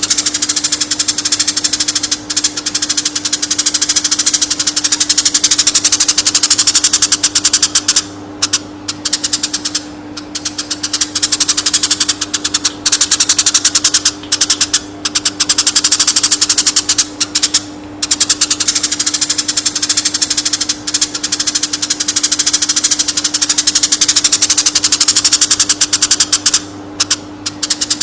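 Eurasian tree sparrow chirping in a fast, tightly packed stream, with short breaks every few seconds, over a steady low electrical-sounding hum.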